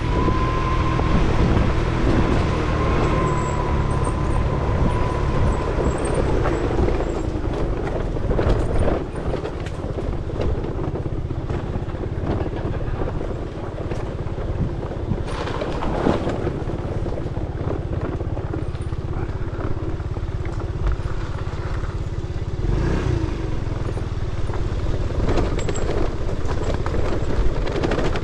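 Scooter ridden over rough off-road ground, its motor running continuously while the frame clatters and knocks over the bumps.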